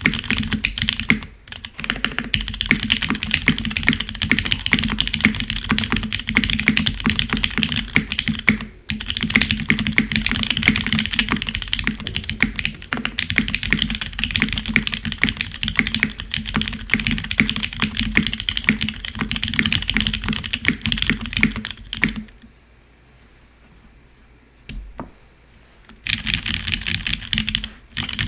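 Fast continuous typing on a Geonworks Frog Mini 60% mechanical keyboard with broken-in Cherry MX Brown tactile switches, GMK keycaps and an aluminium plate, with a hollowness the owner hears especially in the spacebar. The typing stops briefly twice, then pauses for a few seconds near the end with a single keystroke before resuming.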